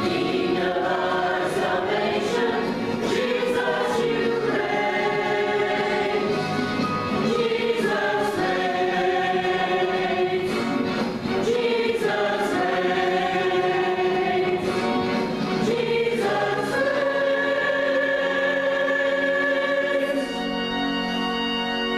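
A choir singing a Christian worship song, with sustained sung notes that change every second or two and a long held note near the end.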